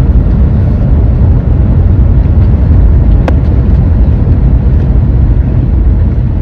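A vehicle driving slowly, with a steady low rumble of road and engine noise and a single sharp click about three seconds in.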